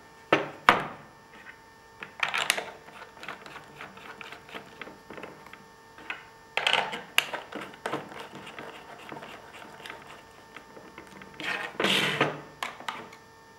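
Parts of a small Tesla turbine knocking and clicking together as it is put back together by hand: the clear plastic end housing set in place and small metal bolts fitted. There are scattered sharp clicks, and a longer scraping rasp near the end.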